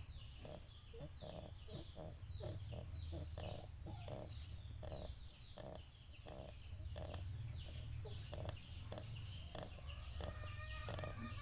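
Chickens clucking in a quick run of short calls, with small birds chirping higher up and a steady low hum underneath; a longer held call comes in near the end.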